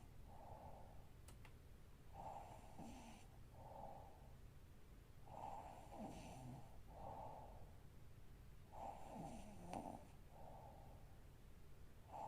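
A sleeping woman snoring quietly and regularly, each breath drawn in two parts and repeating about every three seconds.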